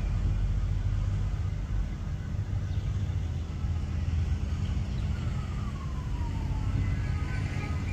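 Steady low mechanical rumble, like a motor running nearby, with a faint falling tone about five seconds in.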